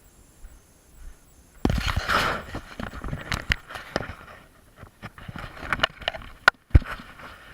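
Someone clambering up a broken ladder: a loud rustling scramble about two seconds in, then scattered knocks, scuffs and scrapes, with a few sharp clicks near the end.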